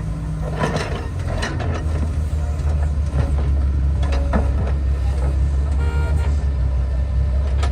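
Heavy diesel engine of earth-moving machinery running steadily, with several short clanks and knocks. A brief pitched tone sounds about six seconds in.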